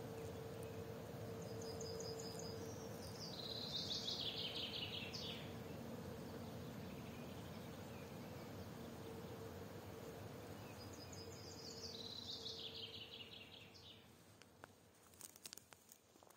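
A songbird sings two phrases about seven seconds apart, each opening with a few high notes and then running down in a quick series of falling notes, over a steady outdoor background with a faint hum. Near the end, footsteps on the forest floor begin.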